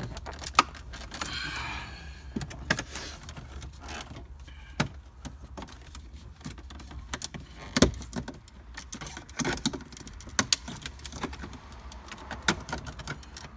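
Plastic pry tool prying off the metal dash trim beside the centre screen of a Cadillac Escalade: irregular clicks, taps and scrapes as the trim clips are worked loose, with a few sharp louder knocks, one about half a second in and two more past the middle, over a low steady hum.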